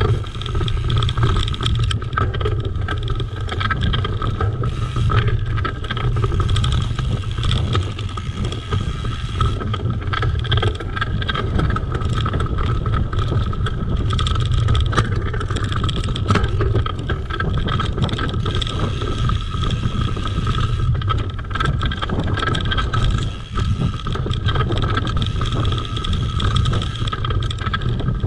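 Mountain bike riding over a dirt woodland trail: continuous tyre rumble and rattling of the bike over bumps and roots, with wind on the microphone.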